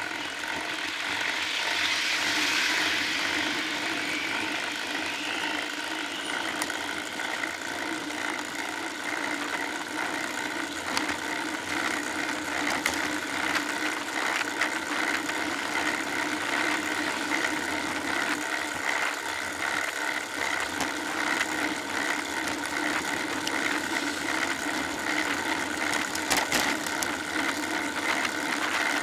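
Riding noise picked up by a bike-mounted camera: steady road and drivetrain noise with small clicks and rattles. A motor vehicle passes close by, its rush swelling and fading over the first few seconds.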